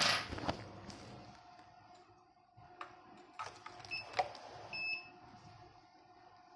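Semi-automatic biochemistry analyzer giving two short high beeps about a second apart, about four seconds in, as the ALT sample tube is held to its intake. Around them are a few light plastic clicks from the tube being handled, over a faint steady hum. It opens with a brief rustle of gloved hands handling the tube.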